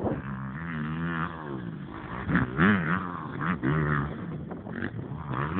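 Motorcycle engine revving, its pitch rising and falling repeatedly as the throttle is blipped.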